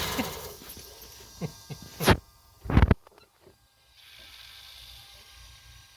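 A 2011 Mazda 3's engine is switched off and runs down. A few clicks follow, with two louder knocks about two and three seconds in, then a faint hiss lasting a second or so. This is the after-shutdown noise the owner can't explain.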